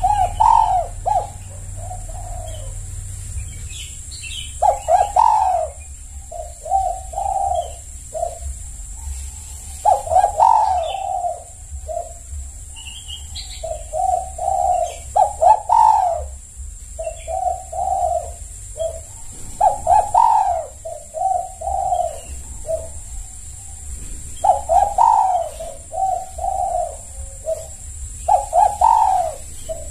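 Spotted dove (tekukur) cooing: phrases of several low coos in a row, a new phrase every few seconds.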